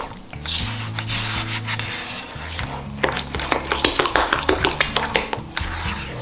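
A spoon stirring and scraping flour into a liquid batter in a wide bowl: rubbing at first, then rapid clicks and taps against the bowl from about three seconds in. Background music with a steady bass line plays under it.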